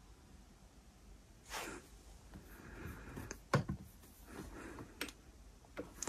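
Quiet room tone, then a soft rustle and a few sharp little clicks, the loudest about three and a half seconds in.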